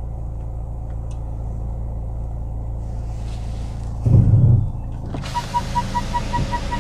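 Steady low rumble of the Mercedes-AMG C43's 2-litre four-cylinder engine idling, heard inside the cabin. About four seconds in there is a short low thud. Just after five seconds a hiss of noise rises and a rapid high electronic beeping starts, about five beeps a second.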